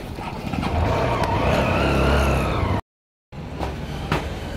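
Two-wheeler's engine pulling away, its whine rising and then easing over a low rumble. After a short break in the sound, a stretch of rustling with a few knocks.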